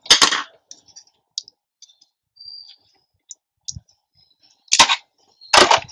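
Sharp clicks from handling a small wire connector and its metal pin by hand: a loud click at the start, faint ticks, then two or three more loud clicks near the end.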